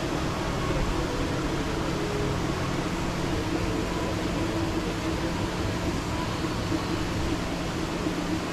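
Steady mechanical hum with a wash of noise.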